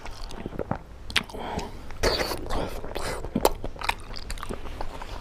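Close-up eating sounds of a man eating pork curry and rice by hand: fingers squishing and mixing the rice and curry, then wet chewing and mouth clicks as he takes a handful of pork. Many short clicks and smacks, busier in the second half.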